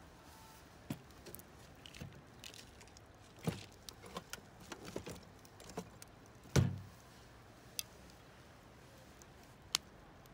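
Scattered small clicks and knocks of objects being handled, with one louder low thump about six and a half seconds in.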